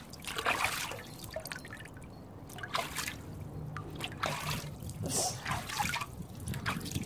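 Water splashing and dribbling in a large plastic tub as a small child's hands slap and stir it: a string of short, irregular splashes.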